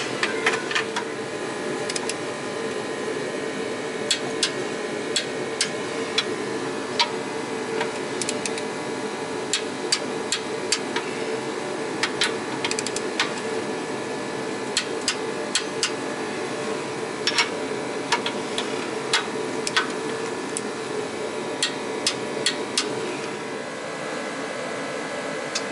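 Steady drone of a shop space heater, with scattered sharp metallic clicks and taps from hand tools working on a heavy-truck clutch and flywheel.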